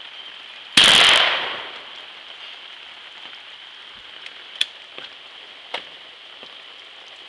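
A single 20-gauge shotgun shot about a second in, its report dying away over about a second. A few faint sharp clicks follow a few seconds later.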